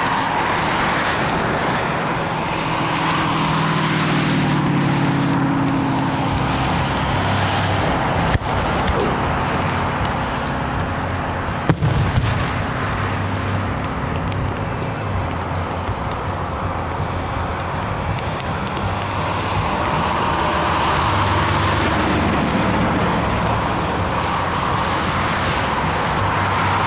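Steady road and engine noise of a car being driven, with two sharp fireworks bangs, one about eight seconds in and a louder one near twelve seconds.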